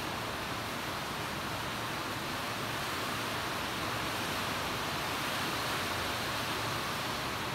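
Steady, even hiss with no breaks, knocks or rhythm.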